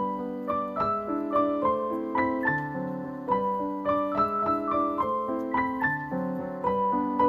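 Background piano music: a gentle melody of evenly struck notes over sustained bass notes.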